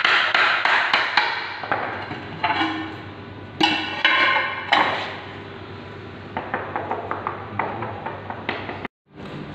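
Hammer knocks on ceramic floor tiles, a few hard ringing strikes followed by a run of lighter clicks and taps.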